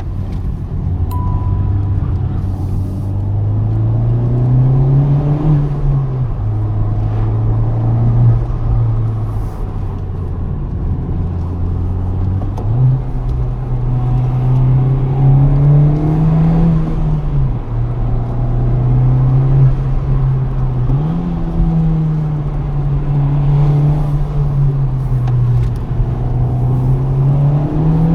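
Honda Civic Type R FK8's turbocharged 2.0-litre four-cylinder engine pulling through the gears: its note climbs and then drops at each gear change, several times over, with one sudden jump up in pitch near the middle. A short high beep sounds about a second in.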